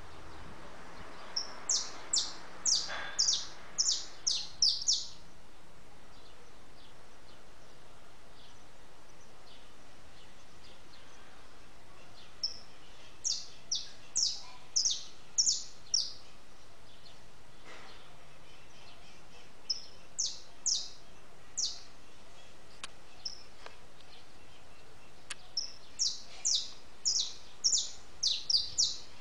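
A small songbird calling: four bouts of short, high, sharp notes, each note falling in pitch, about three a second, with pauses of several seconds between bouts.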